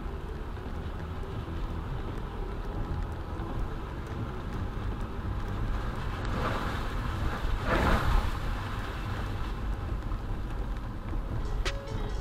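Car cabin road noise on a wet road: a steady low rumble of the engine and tyres. Between about six and nine seconds in, an oncoming car's tyres hiss past on the wet pavement, swelling and fading, loudest about eight seconds in.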